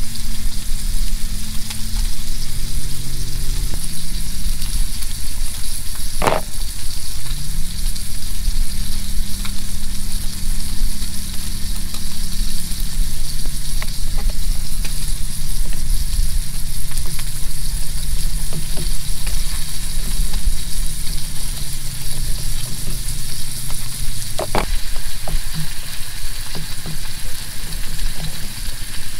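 Steak sizzling in hot oil in a pan on a camp stove, with a fork stirring noodles in a bowl close by and a couple of sharp clicks. A low engine drone wavers slowly up and down underneath.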